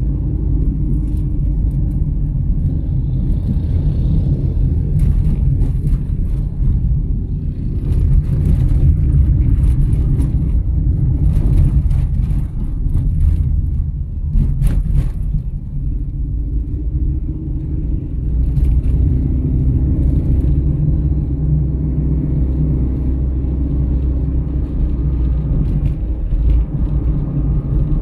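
Steady road and engine rumble of a car driving, heard from inside the cabin, with a scatter of short clicks in the middle stretch.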